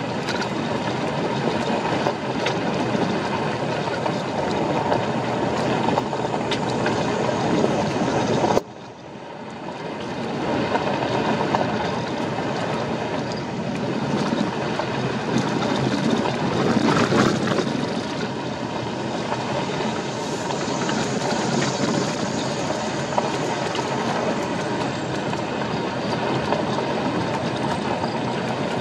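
Car driving on a gravel road, heard from inside the cabin: a steady rumble of tyres on loose gravel with road noise. The noise drops away suddenly about a third of the way in and builds back up over a couple of seconds.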